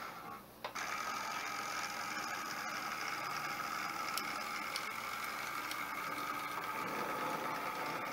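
OO gauge model train running along the track: a steady whirr from the locomotive's motor with wheel noise and a few faint clicks. The sound dips briefly just under a second in.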